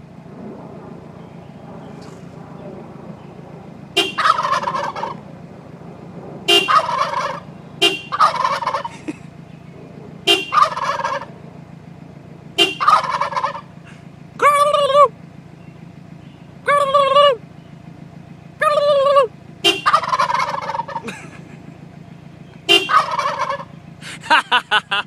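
Turkeys gobbling in loud rattling bursts, repeatedly from about four seconds in, answering short steady car horn honks. Underneath runs a constant low hum.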